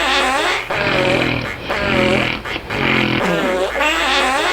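Snoring with loud, fart-like flapping noises, recurring several times.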